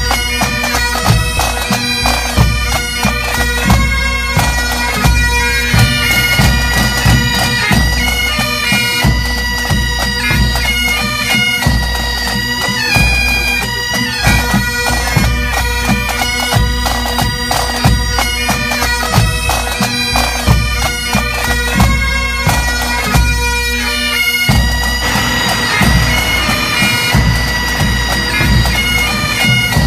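Pipe band playing: Great Highland bagpipes sounding a melody over their steady drone, with drums beating time underneath.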